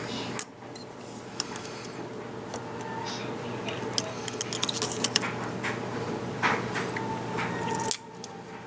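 Small metal parts of a Delta single-handle ball faucet clicking and clinking as they are lifted out and handled during disassembly, over a steady low hum.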